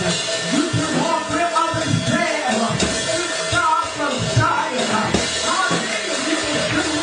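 Upbeat gospel church music played live, with a drum kit keeping a steady beat under a held tone.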